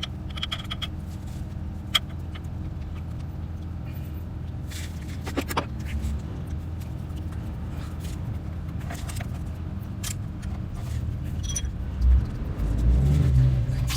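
Honda CBR1000RR inline-four engine idling steadily, with scattered light metallic clicks over it and a louder low rumble near the end.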